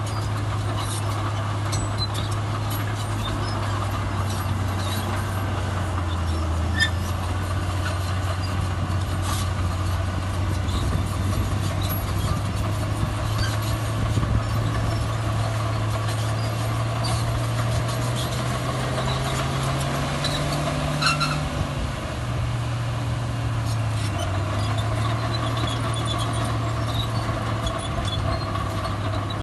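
Heavy diesel earthmoving machinery running steadily, with scattered metallic clanks. The engine speed rises for a few seconds about two-thirds of the way through, then drops back.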